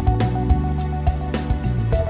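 Background music with a steady beat under held notes.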